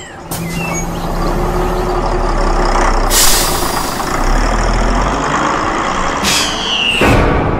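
School bus sound effects: the engine runs as the bus pulls up, and the air brakes give a loud hiss about three seconds in. A second hiss with a falling squeal and a low thump follow near the end.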